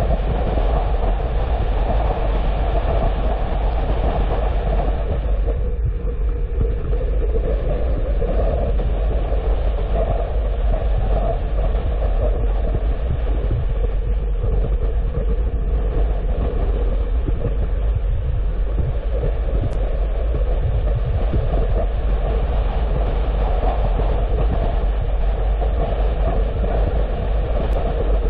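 Steady road noise of a car driving: tyre and engine noise with a strong low rumble.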